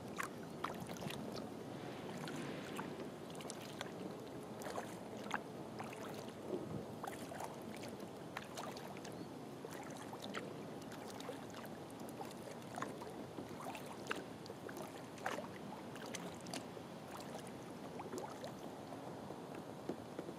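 Kayak being paddled across calm water: a steady wash of water along the hull, with many small irregular splashes and drips.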